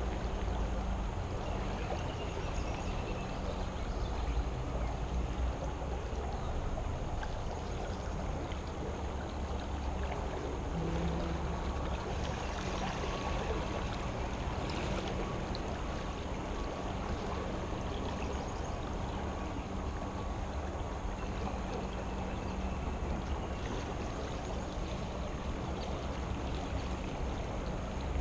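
Steady rush of a creek's fast, churning current where it pours out below a culvert.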